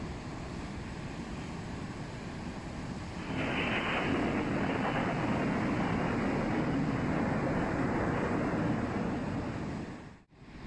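Heavy storm surf with wind on the microphone: a steady wash of waves, then a louder crash about three seconds in that holds for several seconds before cutting off suddenly near the end.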